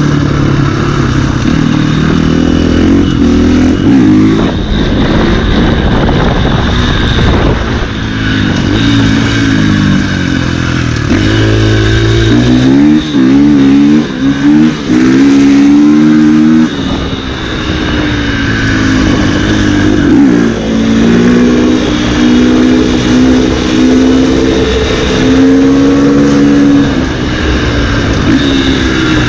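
KTM 450 EXC's single-cylinder four-stroke engine under way, revving up and easing off through the gears. About halfway through it makes a run of quick rising revs, with brief breaks in the sound between them.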